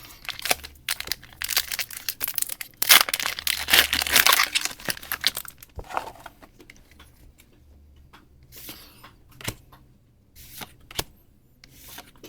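A foil Pokémon TCG booster pack being torn open and crinkled, the tearing and crinkling loudest about three to five seconds in. After that come sparse light clicks and rustles.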